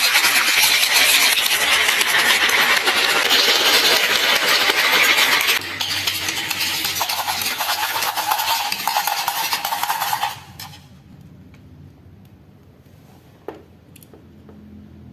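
Marbles rolling and clattering down a marble run's tracks. The clatter is loud and dense for about five and a half seconds, lighter after that, and stops about ten seconds in. A few faint clicks follow.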